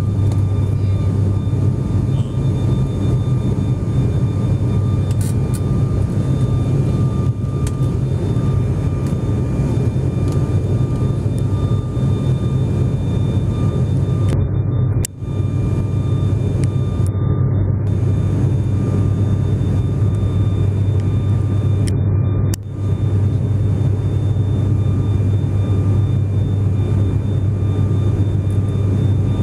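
Steady engine and air noise inside a passenger airplane's cabin in flight: a deep, constant hum with a thin steady whine above it, dropping out for an instant twice, about halfway and about three quarters through.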